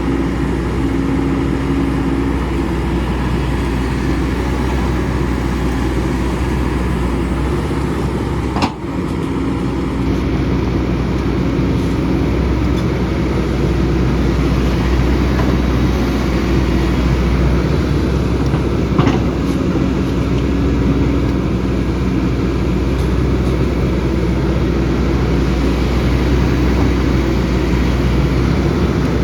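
Hydraulic excavator's diesel engine running steadily, with a brief sharp break in the sound about nine seconds in.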